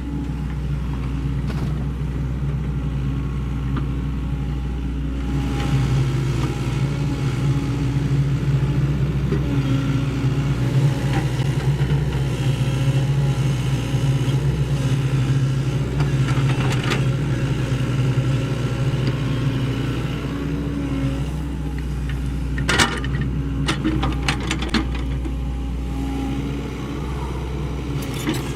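Sany SY75C excavator's diesel engine running steadily, working harder through most of the middle. Near the end comes a sharp metallic knock, then a short run of clatters.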